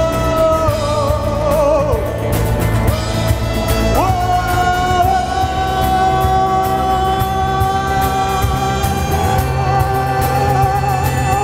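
Live band music: a long held melody note that wavers in pitch, moves to a new note about four seconds in and is held again, over steady bass and drums with cymbal ticks.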